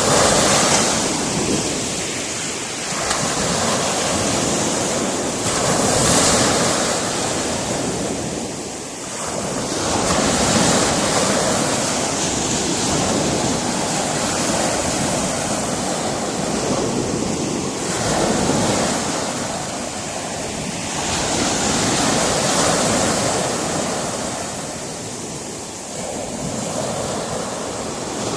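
Sea surf breaking against a rocky shore, its rushing noise rising and falling with each wave every few seconds.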